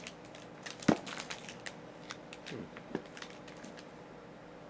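Crinkling and clicking from trading-card packs and their wrappers being handled, with one sharp snap about a second in.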